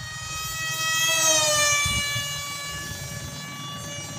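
Brushless electric motor of a homemade styrofoam RC Sukhoi jet model whining at speed as the plane flies past. The whine swells to its loudest about a second in, then drops in pitch as the plane passes and moves away.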